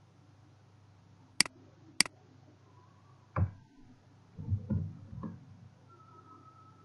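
Two sharp computer-mouse clicks about half a second apart, then four dull keyboard keystrokes over about two seconds as a short name is typed.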